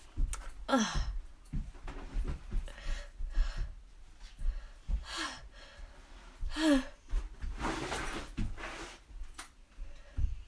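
A woman's repeated gasping, breathy inhalations, several carrying a short voiced "ah" that falls in pitch: the exaggerated vocal buildup toward another allergy sneeze.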